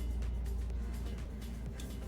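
Background music with a steady deep bass.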